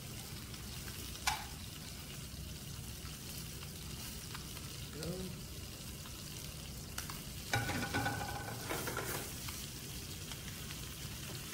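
Rockfish fillets searing in oil in a hot pan, a steady sizzle, with one sharp knock about a second in.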